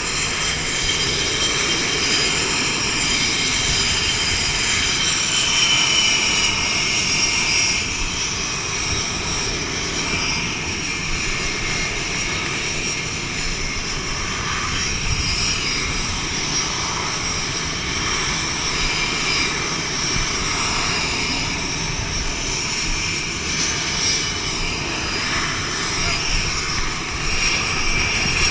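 Jet engines of F/A-18 fighters running on a carrier flight deck: a loud, steady rush with several high whining tones.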